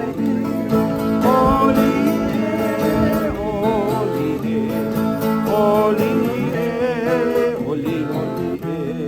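Acoustic guitar music with singing, the melody wavering with vibrato over steady plucked accompaniment.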